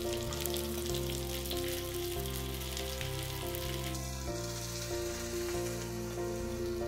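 Zucchini flowers frying in hot oil in a pan, a steady sizzle, under background music with a plain melody.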